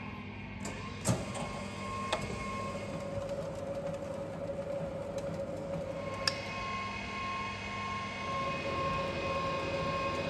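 XYZ 1020 surface grinder's motors starting from the control panel over a steady electrical hum. Sharp switch clicks come about a second and two seconds in, after which a steady whine sets in. A third click about six seconds in brings in a higher whine.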